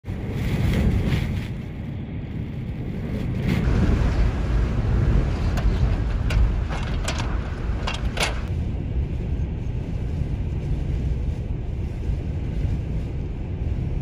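Blizzard-force wind buffeting the microphone: a deep, rushing rumble that swells in gusts about a second in and again around four to six seconds in. Several short crackles come between about five and eight seconds in.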